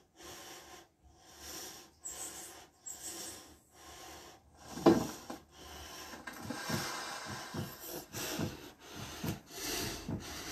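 Heavy rhythmic breathing drawn in and out through a training mask, with a wheezy hiss on each breath, about one breath a second at first and faster after a sharp thump about halfway through. Light thuds of body movement on an exercise mat come between the later breaths.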